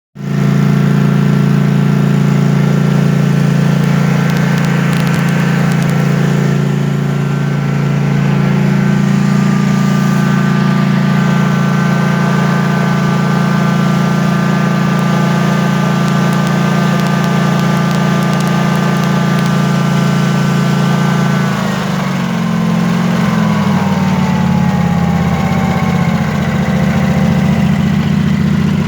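Scag V-Ride mower engine running steadily at high speed, then throttled down with a falling pitch to idle, where it runs choppy and uneven. The rough idle has a popping, misfire kind of sound, which the owner finds only at idle and not at wide-open throttle.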